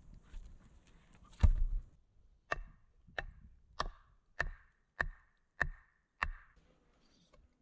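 A heavy thud about a second and a half in. It is followed by seven steady blows of a hand tool, a little under two a second, on the top of an upright wooden post as it is pounded into the dirt.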